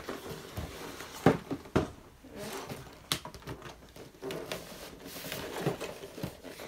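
Cardboard toy box being handled: a few sharp taps and knocks over light rustling and crinkling.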